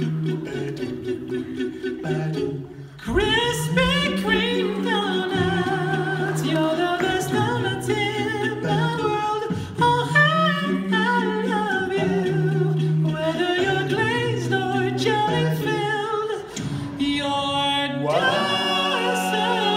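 Male a cappella group singing in close harmony over a held low bass line. The voices thin out briefly about three seconds in, then the fuller, higher parts come back in with vibrato.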